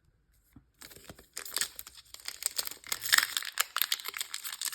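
Foil wrapper of a Pokémon card booster pack crinkling and crackling. It starts about a second in and grows louder and denser.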